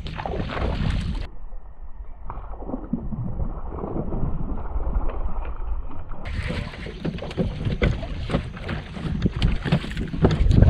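Wind buffeting the microphone aboard an open fishing boat: a steady low rumble with scattered small knocks, louder near the end.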